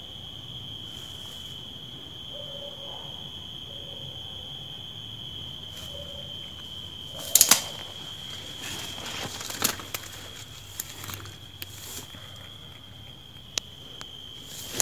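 Footsteps crunching over rubble and brushing through dry weeds, with a loud burst of crackling about halfway through and scattered sharp crackles and snaps after it, all over a steady high-pitched tone.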